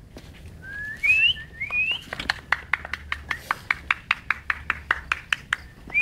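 A person whistling to call dogs: two short rising whistles, then a quick run of sharp clicks at about five a second.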